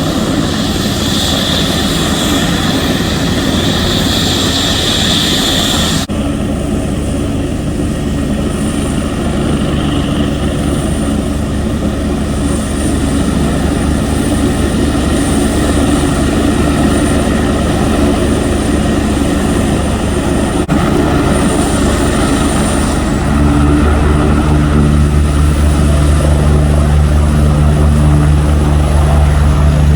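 Medical helicopter running close by: steady rotor and turbine engine noise with a thin high whine over it. About 23 seconds in, the low rotor sound grows stronger and louder.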